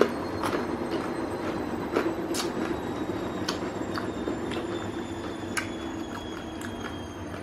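Washing machine spinning: a steady hum and rumble with faint high whines slowly dropping in pitch. Irregular sharp crunches and clicks of crispy fried chicken being bitten and chewed sound over it, the loudest at the very start and about two seconds in.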